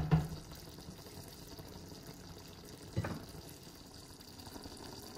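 Mushroom-and-onion gravy simmering in a frying pan, a faint steady bubbling. A short knock sounds right at the start and another about three seconds in.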